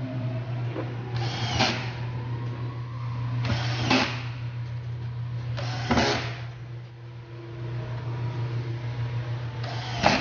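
Four short bursts of a power tool, each about half a second, as the speaker box is being built, over a steady low hum.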